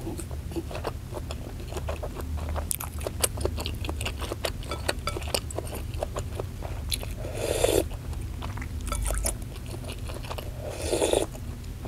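Close-miked chewing of gristly beef-tendon meatballs (bakso urat), with many small wet mouth clicks and crunches. Two louder slurps of broth from a spoon come about seven and eleven seconds in.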